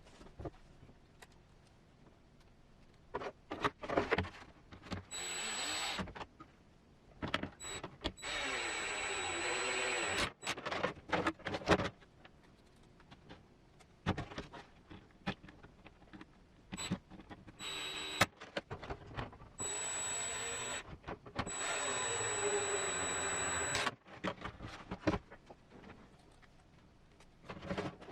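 Small handheld electric screwdriver whirring in four short runs of one to two and a half seconds, its pitch sagging and rising as it drives screws. Clicks and knocks of plastic parts being handled fall between the runs.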